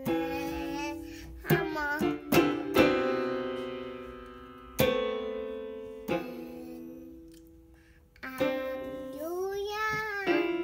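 Digital piano keys struck by a young child, a few notes at a time at uneven intervals, each note ringing and fading. A voice slides up and down in pitch a couple of times alongside the notes, once near the end.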